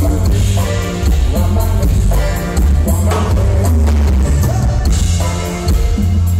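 Live band playing loudly: button accordion with guitar, electric bass, congas and drum kit, over a strong, steady bass line.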